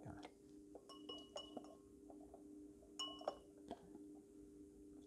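Faint, light clinks as a rubber hose tip knocks against a glass beaker: a few taps about a second in and more about three seconds in, over a steady faint hum.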